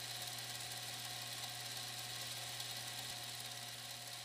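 A steady low hum with a faint hiss, easing slightly near the end.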